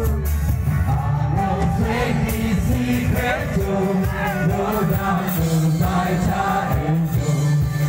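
Live band playing a song: a man singing into a microphone over electric and acoustic guitars, with a strong bass underneath, amplified through a PA.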